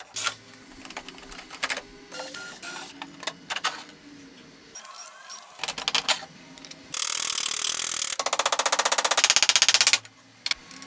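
Workshop sounds from taking apart the wooden case of an antique reed organ with a cordless screwdriver and hand tools. Scattered clicks and knocks come first, then a loud noise about seven seconds in that turns into a fast, even rattle and stops suddenly.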